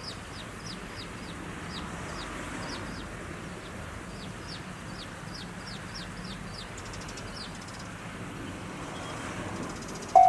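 A small bird calling in a steady series of short, high, falling chirps, about two a second, over a faint rural background. Right at the end a railway level-crossing alarm starts ringing loudly in even pulses.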